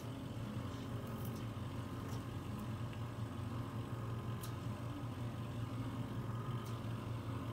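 Microdermabrasion machine's vacuum pump humming steadily as the suction handpiece works over the skin, with a few faint sharp ticks.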